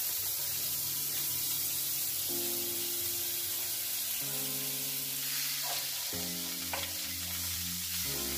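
Half a stick of butter sizzling as it melts in a hot nonstick frying pan: a steady crackling hiss, with a wooden spoon stirring it near the end.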